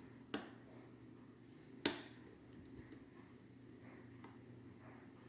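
Faint metallic clicks of lock-picking tools working in a Mul-T-Lock Classic rim cylinder: two sharp clicks, the louder one about two seconds in, with a few fainter ticks after, over a steady low hum.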